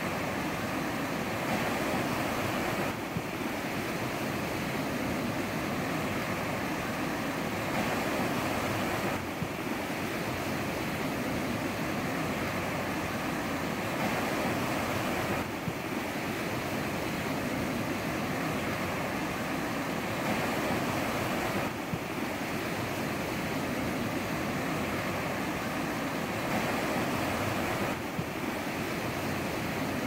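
Ocean surf washing onto the shore in a steady rush of noise that swells and eases about every six seconds.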